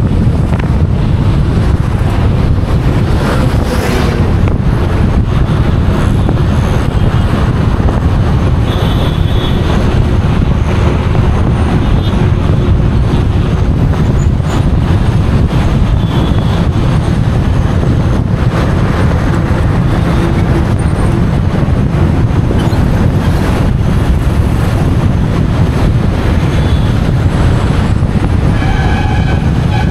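Steady, loud low rumble of road and wind noise from a car driving at speed, with passing traffic. A vehicle horn sounds briefly near the end.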